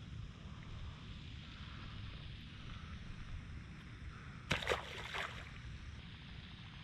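Steady low rumble of wind on the microphone outdoors, with a short cluster of three sharp clicks or splashes about four and a half seconds in.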